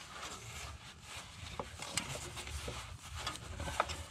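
Faint rubbing and rustling as oily rubber-gloved hands are wiped clean, with a few light clicks and taps scattered through.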